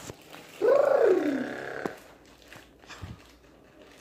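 A child's drawn-out vocal sound, rising briefly then falling in pitch over about a second, ending at a sharp click.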